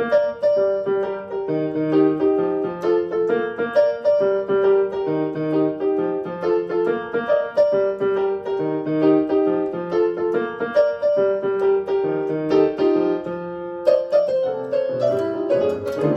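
Background music: a gentle piano or electric-piano melody with a repeating pattern of notes over a bass line, with no singing.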